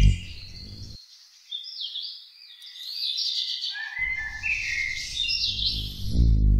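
Songbirds chirping and singing in short, quick sweeping phrases, one after another. Background music drops out for a few seconds, comes back softly, and is loud again near the end.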